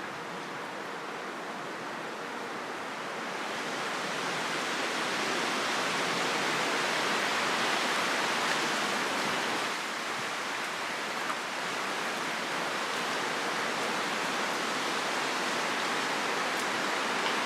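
Wind rushing through trees and foliage in steady gusts, swelling about three seconds in and easing slightly near the middle.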